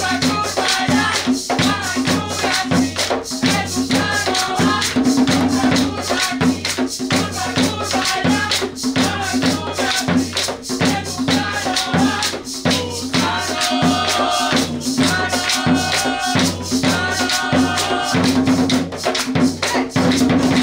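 Colombian Caribbean drumming: a tambora and a tall hand drum keep a fast, steady beat with a shaker and hand clapping. Long held tones join in over the second half.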